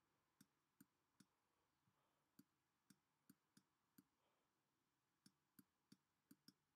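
Near silence with about a dozen faint, irregular clicks of a stylus tapping a tablet surface as a word is handwritten, with short pauses just after a second in and again after about four seconds.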